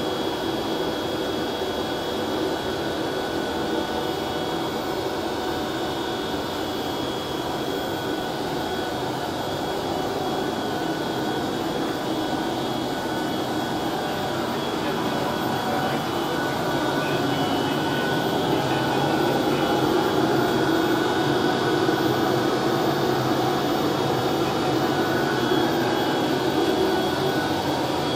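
Over-40-year-old Kung Hsing blown-film plastic extrusion line running: a steady machine hum from its motors and blowers with several constant whining tones, growing a little louder in the second half.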